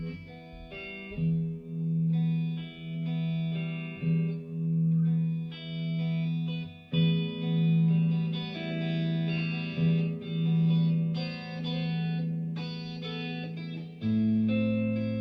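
A Fender Aerodyne Special electric guitar is played through an effect, with notes ringing out clean and the sound swelling and fading about every 0.7 s. Near the end it moves to a new, fuller chord that is held.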